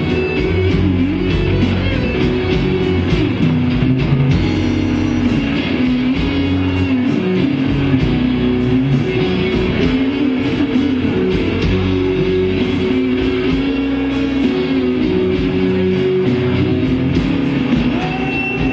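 Live blues band playing an instrumental slow-blues passage: guitars, drums, bass and keyboard, with long held, bending harmonica notes over them.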